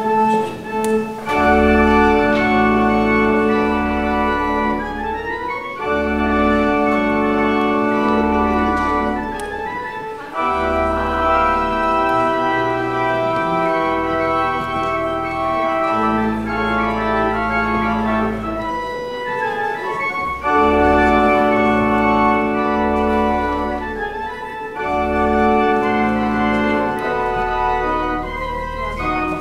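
Church organ playing the recessional: full sustained chords over deep pedal bass notes, the chords changing every second or two.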